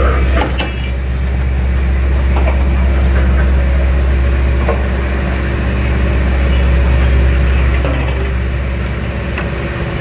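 Fishing trawler's engines and deck machinery running with a steady low drone, with a few light knocks on the deck.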